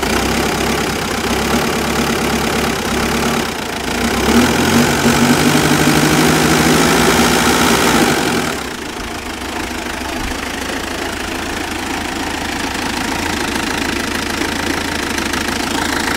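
Mitsubishi Pajero engine idling rough. About four seconds in it is brought up to higher revs and held there for about four seconds, then drops back to idle. The owner says it smooths out with a bit of rpm, with only an occasional hiccup, and is seeking the cause.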